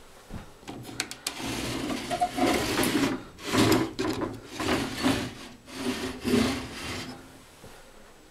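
Old wooden window shutters being pushed open by hand: a few clicks about a second in, then wood scraping and rubbing against the frame in five or six strokes.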